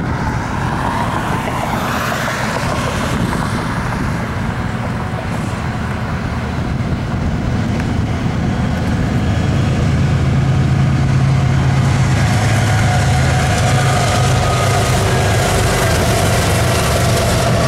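Diesel locomotives of a fast CSX freight train approaching and running past, a steady low engine drone that grows louder about ten seconds in, over road traffic noise.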